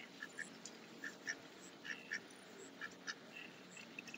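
Domestic ducks quacking softly in short, scattered calls, a few each second.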